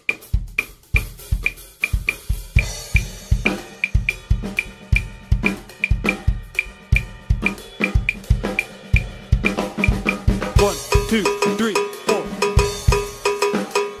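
Acoustic drum kit played in a groove, with kick drum, snare and cymbals, over an evenly spaced metronome click from the PolyNome app. About ten seconds in, the backing changes to a ringing cowbell-style pattern as the app loads its bembe preset.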